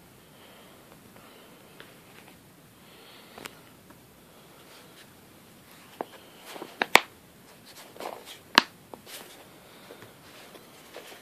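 Plastic first-aid kit case being handled, closed and latched: sharp plastic clicks and knocks over faint rustling, with the two loudest clicks coming a couple of seconds apart past the middle.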